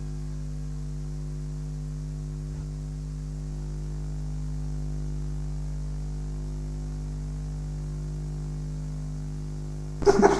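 Steady electrical mains hum: a low drone with several higher overtones over a faint hiss, holding level throughout.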